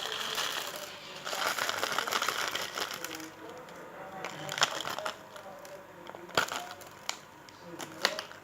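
Slime being squeezed and worked by hand, giving a crackling, popping run of small air-bubble pops, then a few separate sharp pops.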